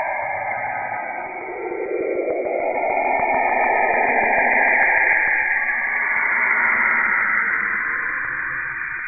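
Saturn's auroral radio emissions, recorded by Cassini and shifted into the range of hearing and compressed in time: eerie hissing, whistling noise whose pitch sweeps, dipping low early, then rising to a loud high hiss in the middle before fading near the end.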